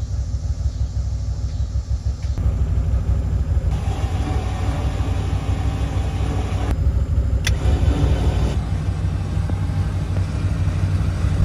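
A vehicle engine running steadily at idle, a low rumble, with the sound changing abruptly a few times.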